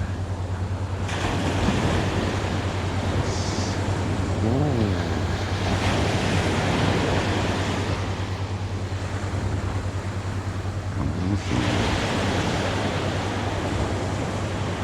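Ocean surf breaking on a beach, with two waves surging in, about a second in and again near eleven seconds, over a steady low rumble of wind on the microphone.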